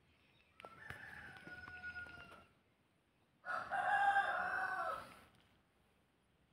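A rooster crowing twice, each crow about two seconds long, the second louder than the first.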